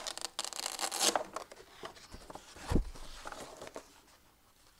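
Paper rustling and peeling off adhesive as cut-out figures and a large paper chart are pulled down and handled on a display board, densest in the first second. There is a soft thump a little under three seconds in.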